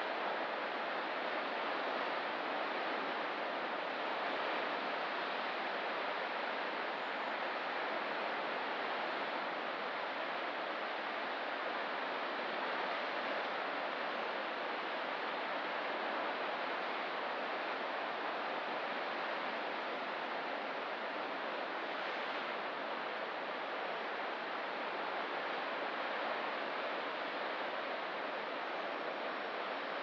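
Ocean surf on a rocky coast, an even, continuous wash of noise without distinct individual wave breaks.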